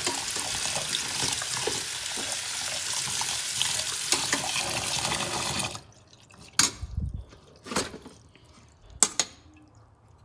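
Tap water running onto boiled rice in a steel colander pot in a stainless sink while a metal spoon stirs it, rinsing off the starch. The water stops suddenly a little over halfway, then three sharp knocks follow about a second apart, the spoon striking the steel pot.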